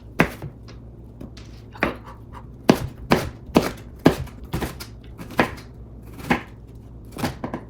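A knife chopping a yellow onion on a cutting board: about a dozen sharp strikes at an uneven pace, coming roughly twice a second in the middle stretch.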